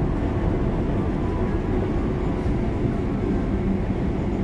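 Keihan electric commuter train standing at the platform, its onboard equipment running with a steady low hum and rumble.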